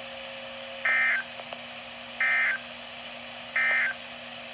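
EAS/SAME end-of-message data bursts on NOAA Weather Radio: three short, identical high-pitched digital warbles, each about a third of a second long and about 1.4 s apart. They mark the end of the warning just read.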